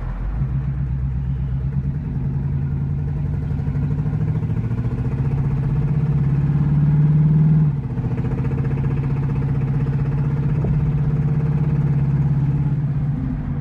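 Ford 289 V8 with a Lunati Voodoo cam accelerating under load, its note climbing, falling suddenly about eight seconds in as it shifts up, then climbing again. Under the load a knock or tick comes through, a noise that developed within the past week and whose cause the owner does not know.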